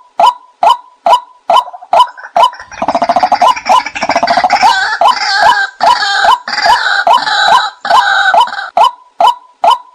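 White-breasted waterhen decoy call recording: a steady series of 'kwak' notes about two a second. About three seconds in it breaks into a dense run of rapid, overlapping croaking calls for some six seconds before the steady notes return near the end.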